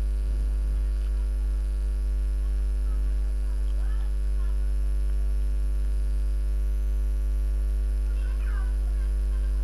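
Steady electrical mains hum, a low drone with many overtones that holds level throughout. Faint short chirping calls come through about four and eight and a half seconds in.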